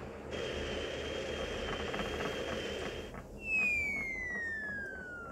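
Cartoon signal flare fired from a flare gun: a sudden fizzing whoosh with a steady high whistle as the flare shoots up. About three seconds in it gives way to a long whistle falling steadily in pitch, the cartoon sound of something dropping back down. A steady storm-rain hiss runs underneath.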